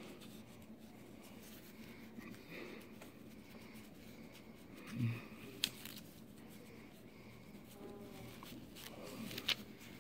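Faint rustling and scratching of fingers picking and pinching at a sticker label on cloth. A brief low sound comes about halfway through, with a sharp click just after it and more clicks near the end.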